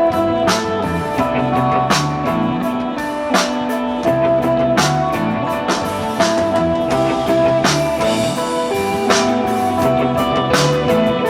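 Live psychedelic rock band playing: electric guitar holding sustained melody notes over a drum kit, with drum and cymbal hits on a slow beat about every second and a half.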